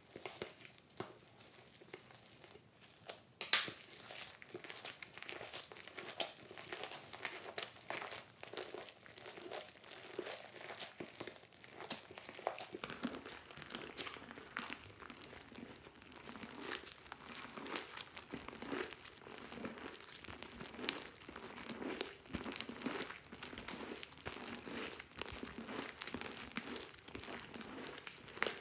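Hands squishing, stretching and folding foamy slime in a glass dish: a continuous run of small sticky crackles and pops, with a sharper pop a few seconds in, growing fuller and more squelchy from about halfway.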